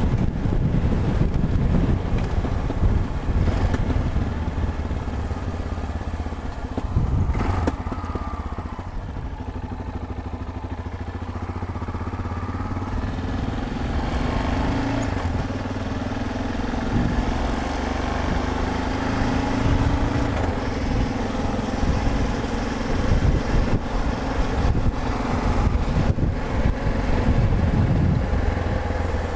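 Yamaha XT 660Z Ténéré's single-cylinder engine running on the move. It eases off for a few seconds about eight seconds in, then pulls again with a rising engine note from about fourteen seconds.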